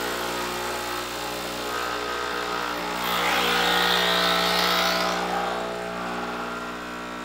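Breville Infuser espresso machine's vibratory pump running at the start of an espresso shot, a steady buzzing hum. It grows louder for a couple of seconds midway, then settles back.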